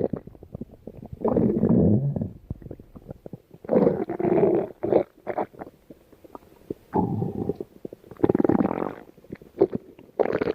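Stomach growling and gurgling in about six irregular bouts, each a second or less long, with soft pops and clicks between them.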